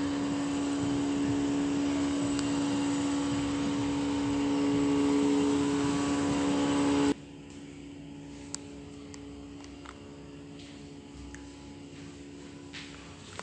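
Air-conditioner outdoor unit (Panasonic Inverter) running: a steady mechanical hum with a strong low tone that grows slightly louder. It cuts off abruptly about seven seconds in, leaving quiet room tone with a few faint clicks.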